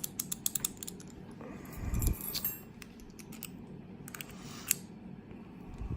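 Small metallic clicks and light rattling of a Silverline four-lever brass padlock and its key or picking tools being handled, with a cluster of ticks in the first second, more around two and four to five seconds in, and a dull knock about two seconds in.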